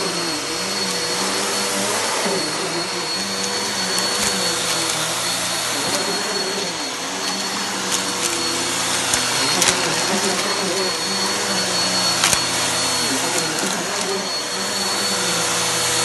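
Bissell bagless upright vacuum cleaner running on a thick shag rug: a steady motor hum with a high whine, its lower pitch wavering as it is pushed back and forth. A few sharp clicks of crunchy debris are sucked up along the way.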